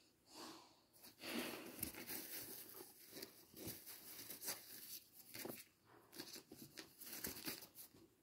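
Close rustling and scratchy crinkling in uneven bursts with small clicks, starting about a second in: handling noise as the phone moves and brushes against the cat and the bedding right at the microphone.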